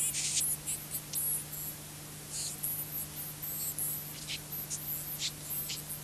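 Scrambled analog pay-TV sound off a VHS tape: a steady low hum under hiss, broken by irregular short, scratchy crackles. This is the garbled audio of an encrypted broadcast seen without a decoder.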